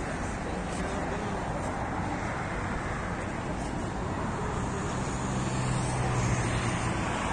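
Steady city traffic noise from the riverside roads. A low engine hum grows louder in the second half.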